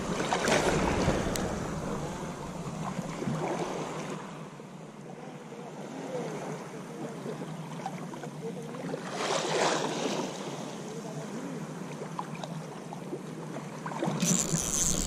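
Small sea waves washing and splashing at the water's edge, swelling about a second in and again around nine to ten seconds.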